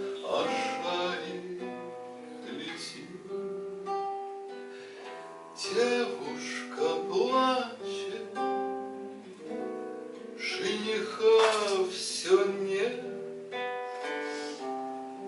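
Acoustic guitar played solo, picked notes and strummed chords, with a singing voice coming in at times.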